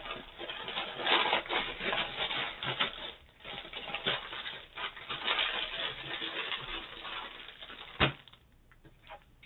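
Diamond painting canvas being handled to measure it: a long run of crinkling and rustling, then a single sharp click about eight seconds in.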